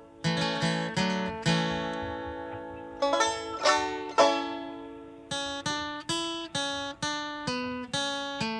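Music from a plucked acoustic string instrument: notes and chords struck and left to ring out, with a quicker run of evenly spaced notes in the second half.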